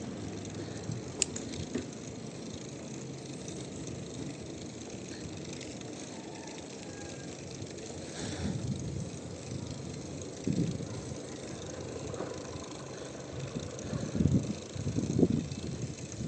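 Bicycle being ridden: steady rolling noise with light rattles, and a few louder bumps in the second half.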